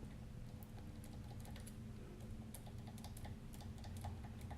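Faint, irregular light metal clicks, a few a second, of a pick tapping the pins of a seven-pin tubular lock under light tension, over a low steady hum.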